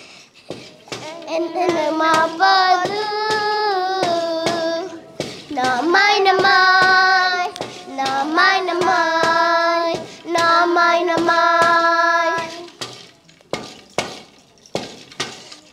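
Group of children singing a chant together in unison, in phrases of long held notes with short breaks, kept in time by a regular knocking beat. The singing stops about 13 seconds in and the beat carries on alone.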